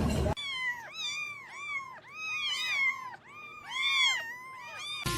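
A cat meowing over and over: a quick string of short, high meows, each rising and falling in pitch, about three a second.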